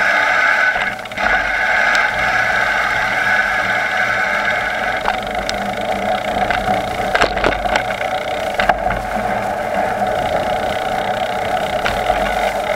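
Bicycle riding noise: tyres rolling and wind on the camera, under a steady whine, with a few sharp rattles about halfway through.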